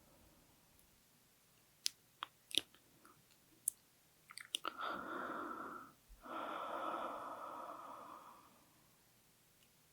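Close-miked ASMR mouth sounds: a scatter of soft wet mouth clicks, then two long, heavy breaths a moment apart, the second fading out.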